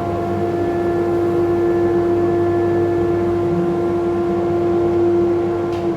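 Vacuum cleaner hooked to a CNC router's dust shoe, running with a steady, even-pitched motor whine.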